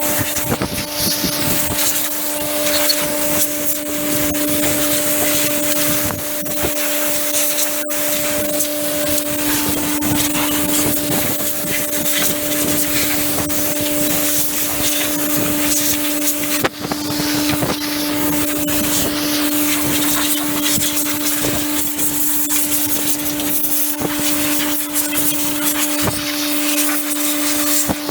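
Compressed-air blow gun hissing hard as an air line blows dust and chaff off a baler, the hiss swelling and dropping as the jet moves over the machine and briefly stopping about two-thirds of the way through. A steady hum runs underneath.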